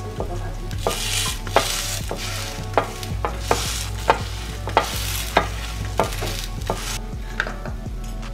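Bread frying on a ridged grill pan with a light sizzle, while a wooden spatula presses and scrapes the slices with sharp taps about every two-thirds of a second.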